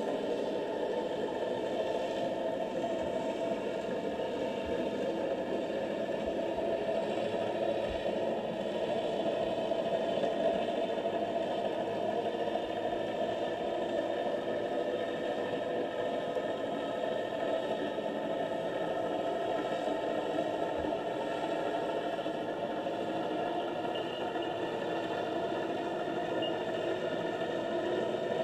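Steady underwater noise picked up by a camera in a waterproof housing on the seabed: an even hum with no clear events, and a few faint low knocks.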